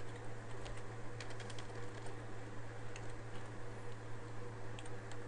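Computer keyboard being typed on slowly: scattered, faint single keystrokes over a steady low hum.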